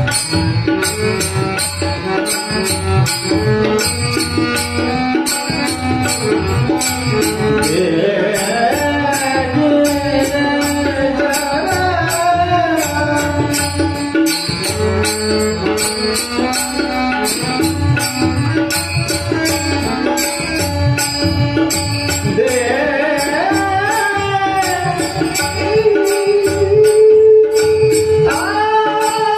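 Marathi devotional bhajan: a sung melody with long gliding, ornamented notes over a steady drone, drums and an even beat of high metallic strikes.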